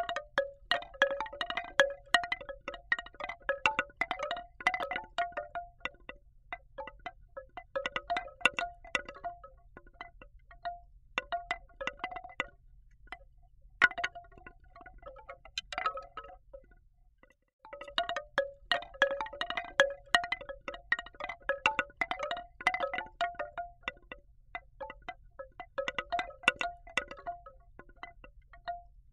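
Woodstock Asli Arts African Trio bamboo wind chime clacking: its hand-toned bamboo tubes knock together in hollow, pitched, wooden clonks. The clonks come in busy clusters with sparser spells between them, and there is a brief silent break a little past halfway.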